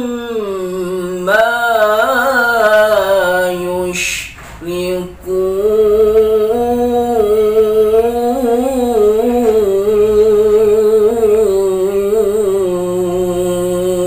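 A man reciting the Quran in melodic tilawah style, drawing the words out in long ornamented notes with a wavering pitch. A short break comes about four seconds in, then one long held phrase.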